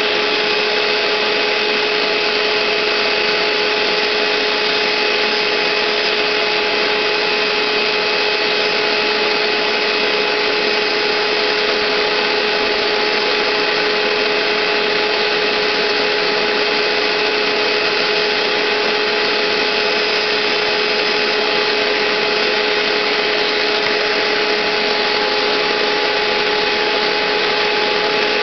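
Hoover SteamVac Gold SpinScrub carpet cleaner running steadily, its suction motor giving a constant whine over a rush of air.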